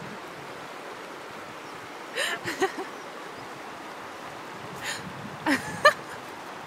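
Steady rush of shallow river water and wind on the microphone, with a person's voice calling out briefly about two seconds in and again about five seconds in.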